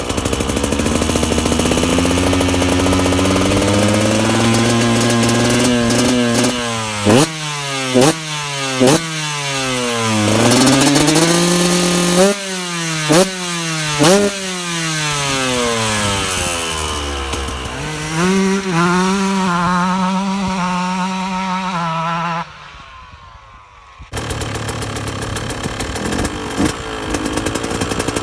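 2009 KTM 125 EXC single-cylinder two-stroke engine idling, then revved: several sharp quick blips and longer revs rising and falling, with an uneven idle between them. The sound drops away for about a second and a half near the end, then the engine is heard running again.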